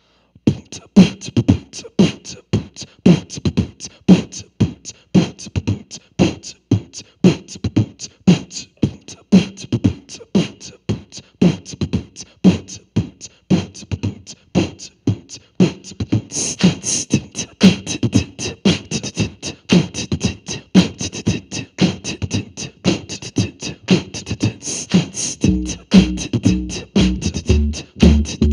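Beatboxing: a steady vocal drum beat of kick-like thumps and hi-hat-like hits, joined near the end by plucked guitar notes.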